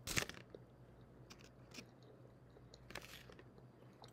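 A person chewing a mouthful of soft tortilla-wrapped burrito. There are two short, louder mouth noises, one just after the start and one about three seconds in, with a few faint clicks between them.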